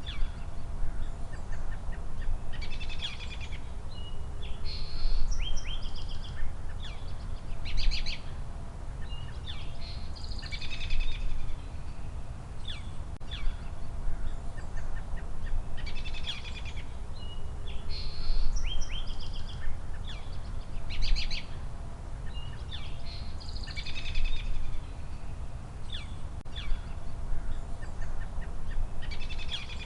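Birds chirping and singing in short bursts of chirps and trills every few seconds, over a steady low rumble of background noise. The same run of calls repeats about every thirteen seconds, as in a looped recording.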